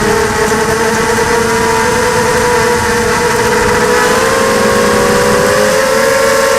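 ZMR 250 racing quadcopter's brushless motors and propellers whining, several close tones beating against each other that rise slightly in pitch about four seconds in as the throttle changes.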